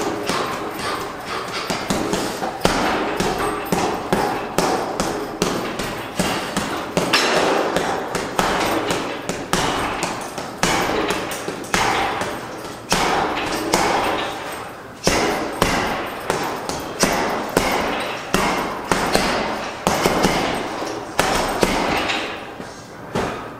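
A long run of sharp knocks and thuds, about one to one and a half a second, each with a brief ringing tail.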